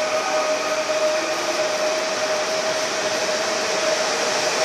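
Pesa Elf electric multiple unit departing and running past close by: a steady rush of wheel and running noise, with a whining tone that fades out about a second in.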